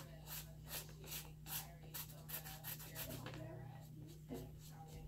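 Wooden popsicle stick scraping paint across a sheet of paper in short repeated strokes, about two or three a second, coming quicker a couple of seconds in and thinning out after about three seconds.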